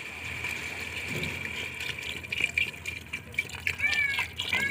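Water poured in a stream into a metal pot of fried chicken and tomato masala, splashing onto the meat and sauce. This is the stage where water is added to the chicken before it is brought to the boil for biryani. The splashing grows busier and more uneven about halfway through.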